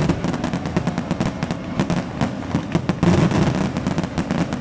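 Aerial firework shells bursting, with dense rapid crackling and popping throughout, loudest about three seconds in.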